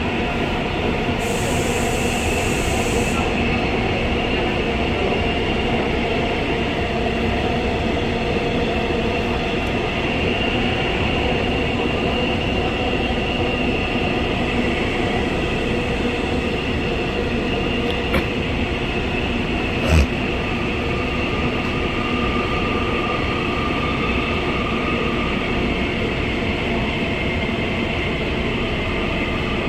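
Gwangju Metro Line 1 subway train running between stations, heard inside the carriage: a steady rumble with faint whining tones. There is a short hiss about a second in, and two sharp knocks about two seconds apart roughly two-thirds of the way through, the second louder.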